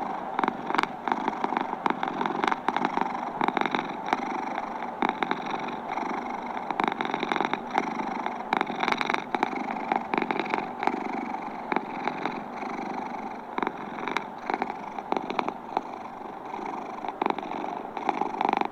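Domestic cat purring steadily, close up, with frequent small clicks and crackles running through it.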